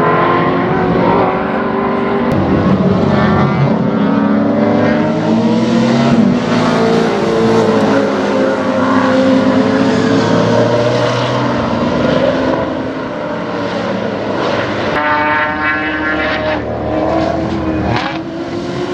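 Sports sedan race cars with big V8 engines running hard through corners, their engine note rising and falling in pitch as they accelerate, shift and lift off.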